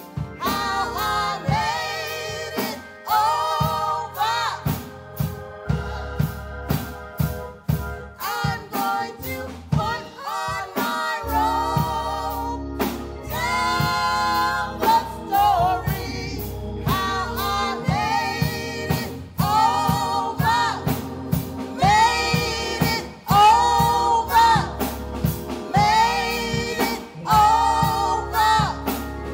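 Female vocal trio singing a gospel song into microphones, with instrumental backing of bass and drums.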